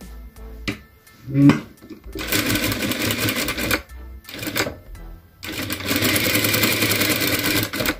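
Sewing machine stitching in three runs: about two seconds of rapid stitching, a brief burst, then a longer run of over two seconds. A short loud sound comes about a second and a half in, before the first run.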